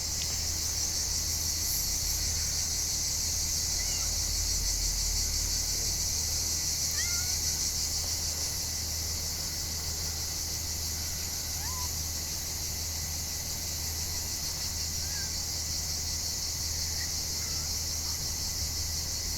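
Steady, high-pitched chorus of insects trilling without a break, with a few faint short chirps scattered over it.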